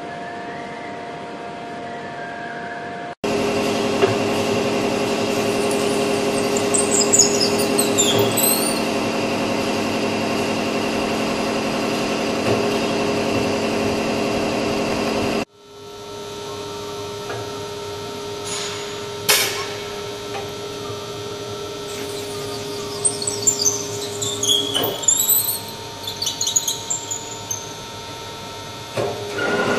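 Industrial woodworking machines running: a steady motor hum with several held tones. It jumps abruptly louder about three seconds in, then cuts back to a quieter machine hum about fifteen seconds in. Over it come a sharp click a few seconds later and scattered brief high squeaks.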